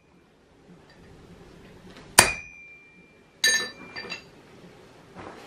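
Blacksmith's hand hammer striking hot iron on a steel anvil. One sharp, ringing blow comes about two seconds in, then a clinking strike ringing at several pitches a second later, followed by a couple of lighter taps.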